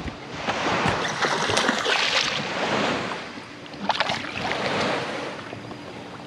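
Sea water washing and splashing against a small boat's hull, swelling up twice, with a few sharp splashes in the first swell.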